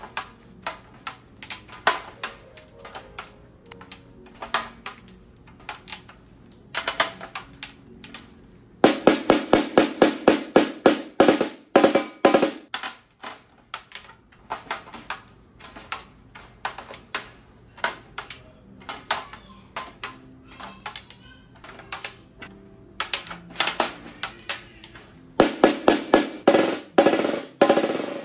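A one-piece 3D-printed snare drum cranked to extreme high tension, at the limit of its head's pitch, struck with a drumstick. Light, irregular taps on the head while the lugs are tightened give way to two runs of quick, louder strokes, about nine seconds in and again near the end.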